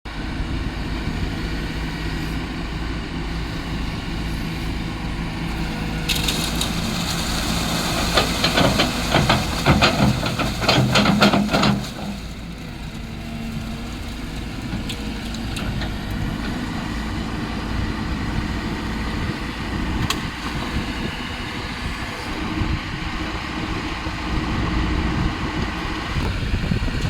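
Heavy machine's engine running steadily, with a louder stretch of rapid rattling and clanking from about six to twelve seconds in.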